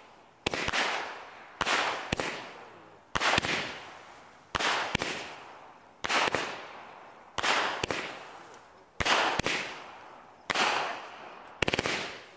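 A 200 gram consumer firework cake firing shot after shot, about one every one and a half seconds. Each shot is a sharp launch pop, then a moment later the bang of the burst, followed by a hiss that fades.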